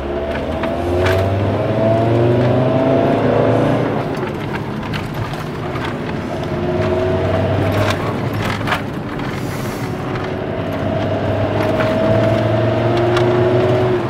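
Car engine heard from inside the moving car, pulling in three stretches: its pitch climbs, drops back about four seconds in, then climbs again twice, over steady road rumble with a few small clicks and knocks.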